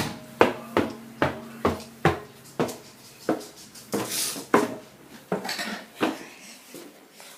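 A run of sharp clinking taps on a hard object, about two to three a second, slowing and fading near the end.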